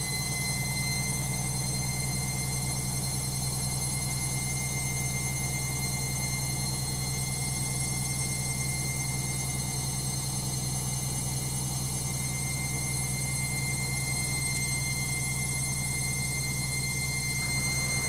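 Logik washing machine spinning its drum at a steady speed during an intermediate spin: a steady motor hum with a thin high whine over it.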